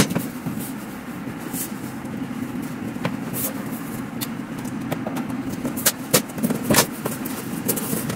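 Long flat-pack cardboard box being lifted, set down on a tile floor and handled, with scattered knocks and scrapes of cardboard, over a steady low hum.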